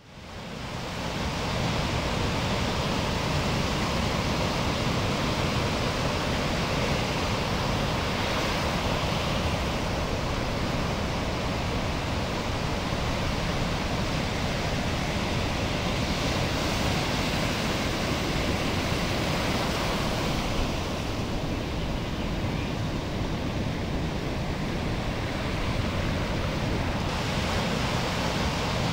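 Steady rush of ocean surf and breaking waves, fading in over the first second or so, its hiss shifting a little a few times.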